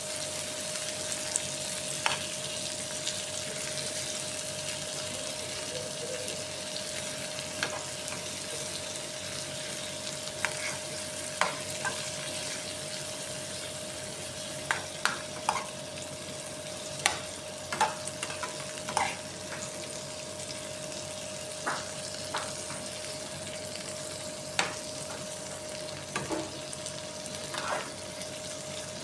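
Whole shrimp frying in a metal pan on a gas stove, with a steady sizzle and a faint steady hum underneath. A metal spoon clinks and scrapes against the pan now and then as the shrimp are turned, most often in the second half.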